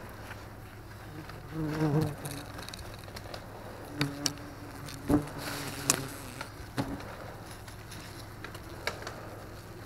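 Yellow jackets buzzing close by, loudest about two seconds in and again from about four to six seconds, while a gloved hand tears their papery nest comb out of the drywall with scattered sharp crackles and snaps.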